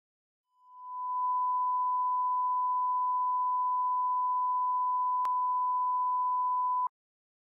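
Line-up test tone played with colour bars: one steady pure tone that fades in over the first second, holds level, and cuts off suddenly near the end. A faint click comes about five seconds in.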